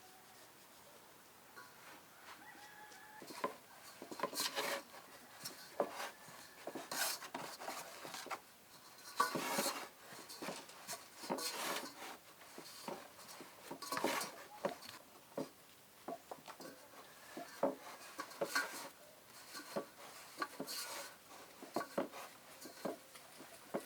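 Irregular knocks and clatters of food preparation, with chickens clucking in the background.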